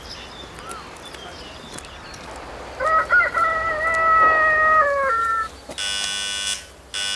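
A rooster crows once, a long call of about two and a half seconds that drops in pitch at its end. Near the end a gate's electric doorbell buzzer sounds twice in short, flat buzzes.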